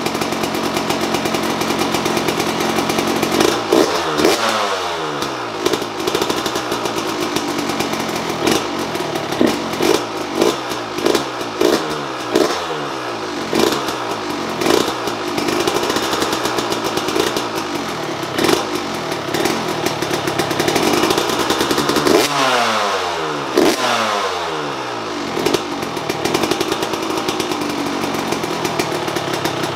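Two-stroke dirt bike engine, a 2002 Yamaha YZ125, running through a Pro Circuit Shorty silencer with fresh packing, idling and revved with throttle blips: a burst about four seconds in, a run of about a dozen quick blips in the middle, and more revs near the end. It sounds good.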